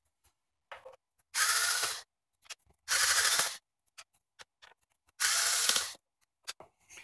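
Cordless power screwdriver running in three short bursts, backing out three fine-thread screws from the monitor's back cover, with small clicks of handling between the bursts.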